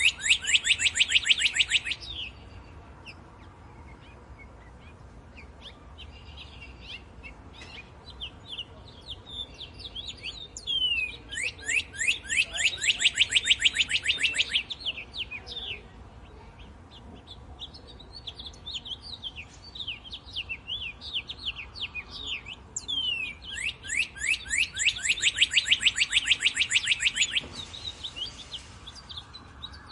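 Birdsong: three loud songs, each a rapid run of quick, evenly spaced descending notes lasting two to three seconds, about twelve seconds apart, with softer scattered chirps in between.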